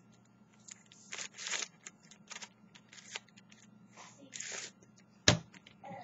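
A 3x3 speed cube with LEGO bricks glued onto its faces being turned by hand: a string of short plastic scraping and clicking turns, then one sharp knock about five seconds in.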